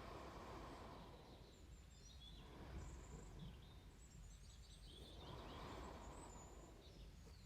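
Soft, slow breathing close to the microphone, one breath swelling and fading about every three seconds, over a faint steady low hum.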